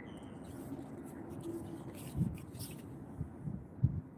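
A few dull low thumps over steady low background noise, with one louder about two seconds in and the loudest near the end.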